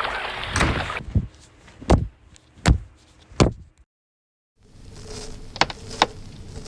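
A series of five dull knocks or thuds, about one every 0.7 seconds. After a brief cut to silence, two sharper clicks sound over a faint steady hum.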